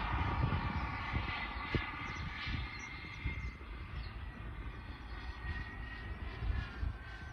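Distant whine of a model jet glider's Jetcentral 90N micro turbine engine in flight, a steady high tone that falls slightly in pitch. A low rumble of wind on the microphone, strongest at the start, runs under it.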